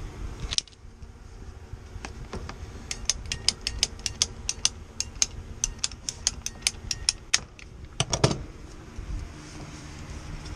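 A run of sharp metallic clicks, a few each second for about four seconds, from a small hand-worked mechanism, with a brief scraping noise near the start and again near the end.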